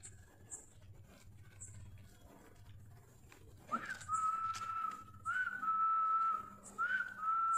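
A person whistling three long, steady notes, each opening with a quick upward slide, starting about halfway through, as when calling dogs. Faint short high chirps repeat about once a second throughout.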